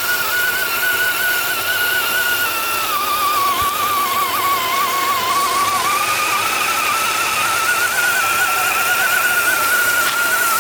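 Electric motor of an RC tracked vehicle whining steadily under throttle. The pitch sags a few seconds in, then climbs back. The tracks are packed with mud and getting little grip.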